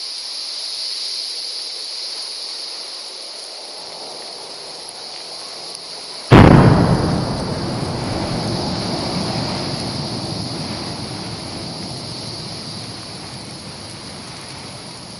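A steady hiss, then about six seconds in a sudden loud boom as the volcanic fissure bursts open, followed by a rumble that slowly fades.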